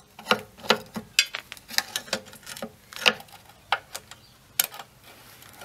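Small steel parts of a cylinder mower's chain drive clicking and clinking as loose nuts and the clutch-cable yoke are worked off by hand: a dozen or so sharp, irregular metallic clicks.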